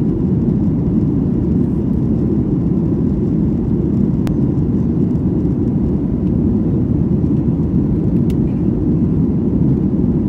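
Steady cabin noise of a Ryanair jet airliner in cruise: a constant low rush of engines and airflow heard from inside the passenger cabin.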